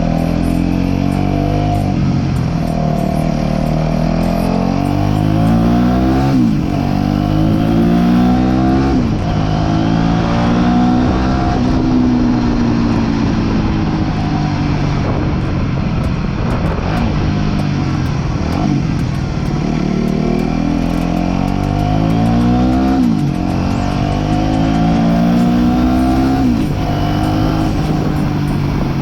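Aprilia RS4 125's single-cylinder four-stroke engine pulling hard through the gears. The pitch climbs and then drops sharply at each upshift, several times over.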